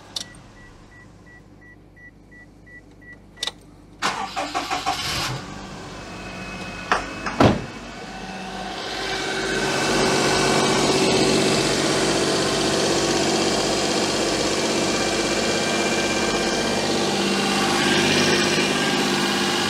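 A car's warning chime beeps steadily with the engine off, then a few clicks and knocks, and the Daihatsu Charade's swapped-in 989 cc three-cylinder engine starts about seven seconds in and settles into a steady high idle. It sounds as if it is sucking in air, which the owner takes for an air leak, probably at the inlet manifold gasket.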